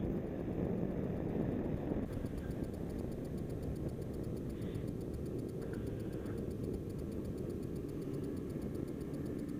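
Snowmobile engine running steadily, a low even rumble.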